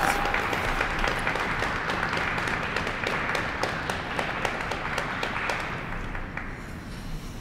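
Audience applauding, many separate claps over a steady patter, thinning out and fading away near the end.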